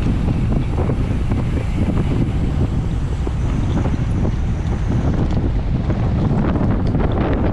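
Heavy, steady wind noise on an on-board action-camera microphone as the bicycle races along.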